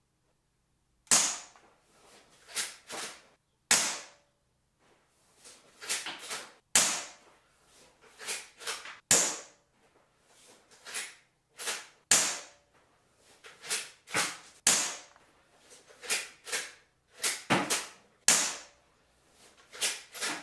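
Umarex Legends Cowboy Rifle, a CO2 lever-action air rifle, firing steel BBs: a sharp crack every two to three seconds. Between the shots come quieter clacks as the lever is worked to chamber the next shell.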